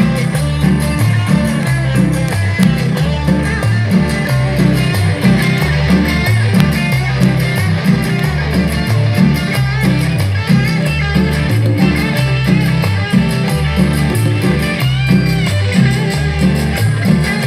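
Live cumbia band playing an instrumental passage: a bass line repeating in an even rhythm under guitar and other instruments, with no singing.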